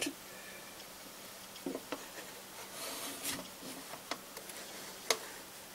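Handling noise as a camera is repositioned: soft rubbing with a few light clicks and taps.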